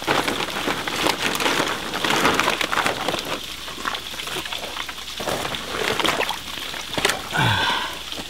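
Black plastic sheeting crinkling and rustling as it is pulled and pressed down in shallow creek water, with scrapes and knocks of concrete blocks being set on top of it.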